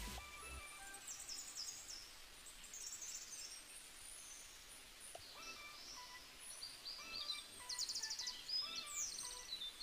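Quiet background soundtrack of birdsong, quick high chirps and rapid trills coming and going, busiest near the end, over faint soft tones. A deeper music passage fades out about half a second in.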